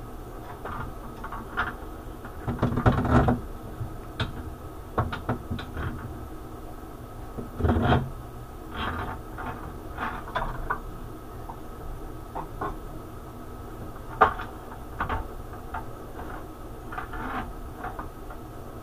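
Irregular metal clunks and clattering from hands-on work on a Tormach mill's Y axis during a ball screw replacement, over a steady hum. The heaviest clatter comes about 3 and 8 seconds in, with a single sharp click about 14 seconds in.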